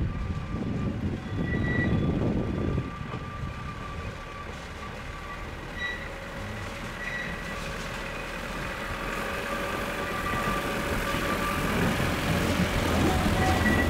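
Baguley-Drewry narrow-gauge diesel locomotive hauling a passenger train as it approaches. Its engine runs steadily and grows louder as it nears, with a low engine note strongest near the end.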